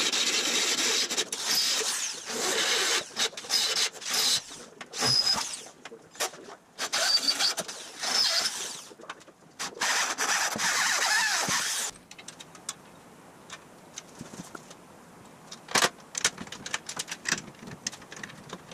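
Electric drill boring into the steel frame in repeated bursts of a few seconds each, the bit squealing in the metal. About twelve seconds in the drilling stops, leaving scattered light clinks of metal parts being handled.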